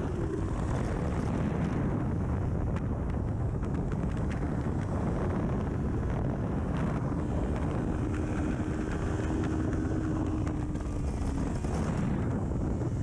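Kawasaki Ninja 400 parallel-twin with an aftermarket full exhaust, riding at speed on track, heard through heavy wind buffeting on the microphone. The engine note changes pitch with the throttle and rises near the end.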